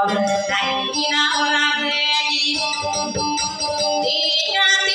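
A woman singing a Maranao dayunday song in long, slightly wavering held notes over a strummed acoustic guitar.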